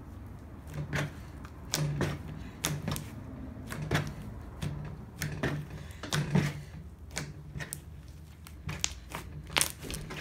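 Slime mixed with crumbled styrofoam being kneaded and pressed by hand, giving irregular crackling and popping clicks, several a second.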